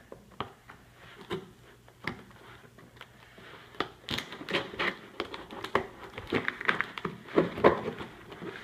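Scissors cutting through plastic packing tape on a cardboard box, with the tape crackling and crinkling as it is sliced and pulled. Scattered clicks at first, growing much busier about four seconds in.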